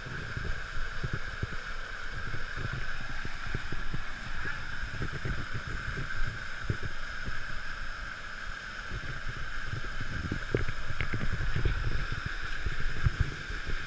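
Steady rush of falling and flowing water, with wind gusting and buffeting on the microphone.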